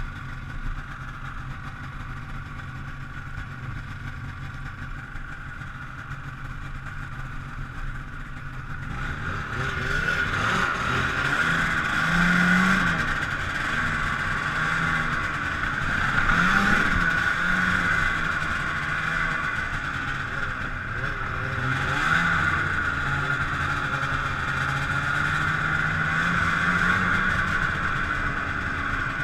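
Snowmobile engine idling steadily, then pulling away about nine seconds in and running louder, its pitch rising and falling with the throttle while riding.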